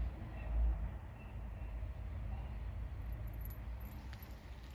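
Quiet outdoor background: a low rumble, strongest in the first second, with a few short, faint high chirps scattered through it.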